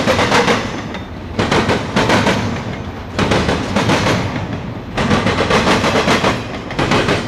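Steel wheels of a passing double-stack intermodal freight train clacking over the track, coming in clusters of sharp clacks about every one and a half to two seconds as each car's wheel sets go by, with a steady rolling rumble between them.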